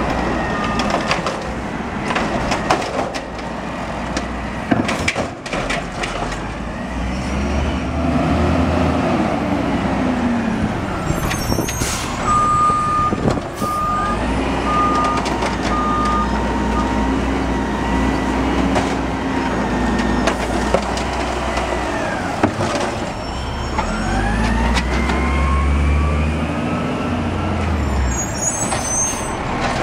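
2001 Peterbilt garbage truck with an Amrep automated side-loader arm working curbside carts. The diesel engine revs up and down several times to drive the hydraulic arm as it lifts, dumps and sets down carts, with sharp clunks of the cart and arm against the truck and a short row of about five beeps partway through.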